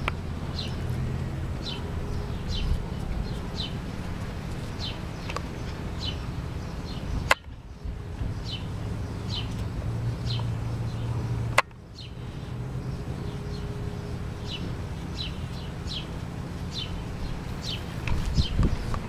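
A bird calling over and over, short falling chirps about one a second, over a steady low rumble.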